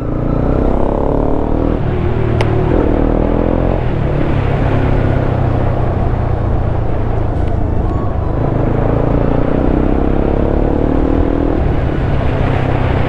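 Motorcycle engine pulling under acceleration over heavy wind noise. Its pitch rises twice and drops suddenly at each gear change, a little under four seconds in and again near the end.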